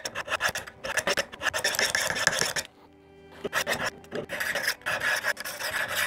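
Knife blade drawn in quick alternating strokes down the upright rods of a V-set rod sharpener, steel rasping on the rods at about three to four strokes a second. The strokes stop briefly a little before halfway and then start again.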